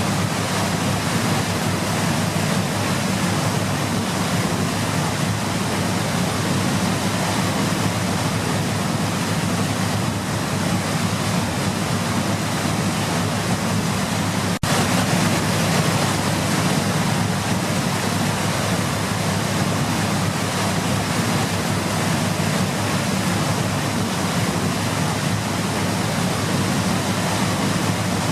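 Waterfall rushing in a steady, unbroken roar of falling water. About halfway through it drops out for a split second and comes back slightly louder, like a cut between two shots.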